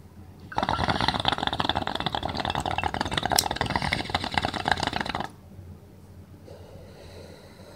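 Water in a glass beaker bong bubbling rapidly as smoke is drawn through it. The bubbling lasts almost five seconds and stops suddenly.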